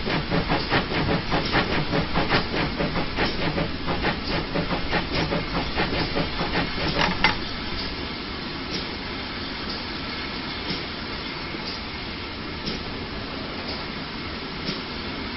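GWR 0-6-0 pannier tank steam locomotive working, with rhythmic exhaust chuffs over steam hiss. About seven seconds in the chuffing stops and a quieter, steady rolling sound of the train carries on.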